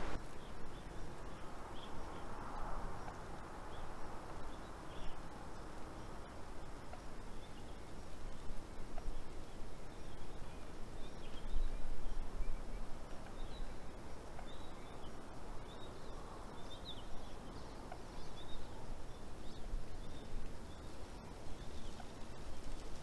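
Outdoor winter ambience: a steady background hiss with faint, short bird chirps scattered through it, most of them clustered about two-thirds of the way in.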